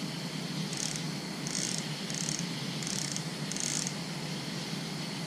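Night insects calling in short, high, raspy chirps, roughly one every half second to second, stopping about four seconds in, over a steady background hiss.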